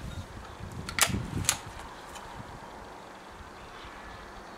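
Two sharp clicks about half a second apart, then a steady faint hiss of wind on the microphone.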